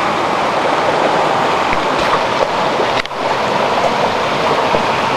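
Steady rushing of the Whitewater River's flowing water, dipping briefly about three seconds in.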